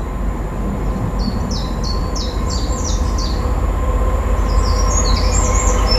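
A Class 66 diesel locomotive's two-stroke V12 engine approaching with its freight train, a steady low rumble slowly growing louder. Over it a songbird sings a quick series of repeated high chirps.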